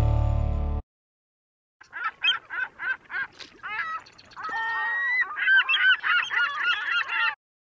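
Geese honking: separate honks about two a second at first, then several birds calling over one another from about halfway through, until the calls stop shortly before the end.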